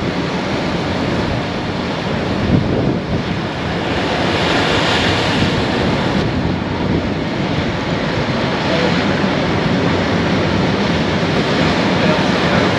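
Ocean surf breaking and washing against a rocky shoreline, a steady rushing wash that swells louder about four seconds in.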